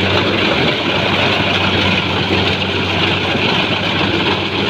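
Rice combine harvester running steadily: an even engine hum with a dense hiss above it.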